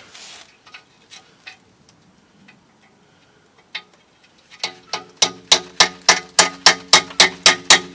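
A hammer striking metal at a rusted exhaust clamp bolt. After a few faint clicks, an even run of ringing metallic blows starts about halfway in, about four a second.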